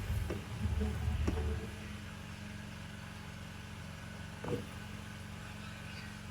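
Spoon turning food in a cooking pot, with rumbling and a few knocks, for about the first two seconds. After that a steady low hum carries on, with one short knock about halfway.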